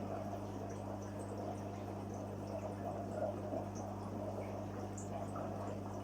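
Water trickling and dripping over a steady low electric hum, with faint small ticks of drips scattered throughout.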